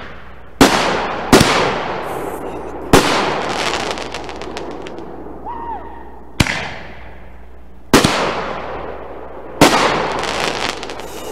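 Consumer 1.4G artillery shells firing and bursting: six sharp booms at uneven gaps, each followed by crackle and a rumbling tail that fades over a second or two.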